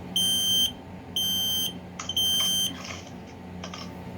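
Kidde KN-COSM-B combination smoke and carbon monoxide alarm sounding on test: three loud, high-pitched beeps of about half a second each, evenly spaced. This is the smoke alarm's three-beep fire evacuation pattern.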